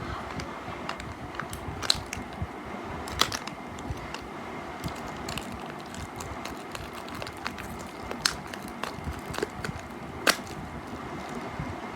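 A few scattered sharp clicks over a steady background noise, the strongest about two, three, eight and ten seconds in.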